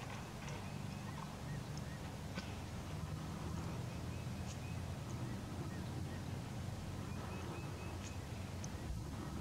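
A steady low rumble with faint distant bird calls: short runs of high notes come a few times, and there are a few light clicks.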